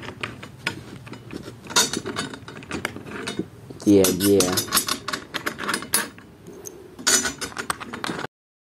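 Metal tension rods on a tom drum being turned by hand, a run of small metallic clicks and rattles as they are finger-tightened before tuning with a key. A short spoken "yeah" comes about four seconds in, and the sound cuts off suddenly shortly before the end.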